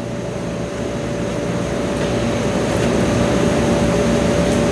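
A steady machine hum with one held tone, slowly growing louder.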